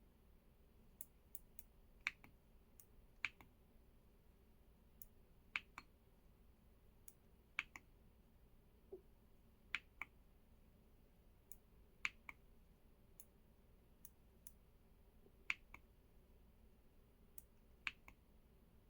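Keys on an EPOMAKER x LEOBOG K81 Pro mechanical keyboard pressed one at a time, each a short sharp click, about one keystroke every one to two seconds, often heard as two clicks in quick succession.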